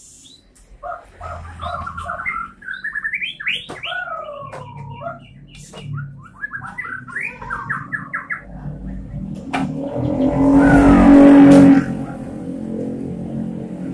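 Caged white-rumped shama singing: varied whistled phrases and rapid trills. About two-thirds of the way through, a passing motor vehicle swells up loudly, drowning the song, then fades.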